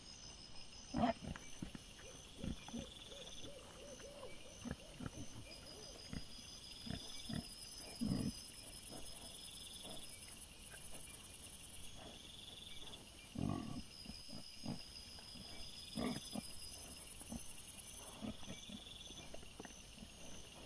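Short grunts and snuffles from foraging wild boar come at irregular intervals, the loudest about a second in and again around the middle. Underneath runs a steady, high, pulsing chirring of night insects.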